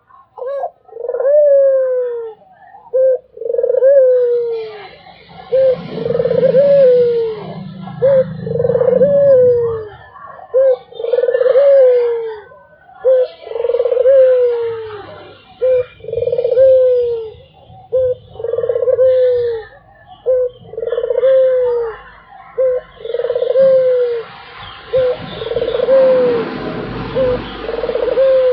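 Puter (domestic Barbary dove) cooing over and over: each call a short note followed by a longer, falling coo, repeated about every two seconds.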